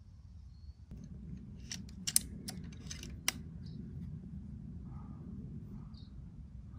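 A quick run of about five sharp metallic clicks over two seconds, the loudest about two seconds in: the .22 air rifle's action and cocking lever clicking as it is handled.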